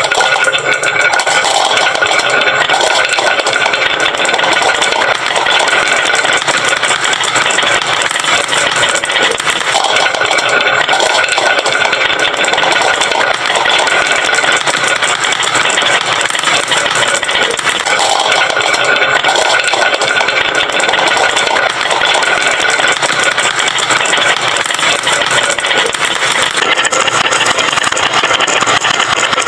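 Dense, continuous rattling clatter of many marbles rolling down a wooden slope marble run and tumbling into toy trucks, steady throughout.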